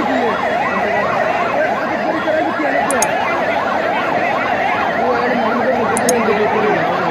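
Several vehicle sirens sound at once, their rising and falling pitches overlapping out of step, over the steady noise of a large crowd.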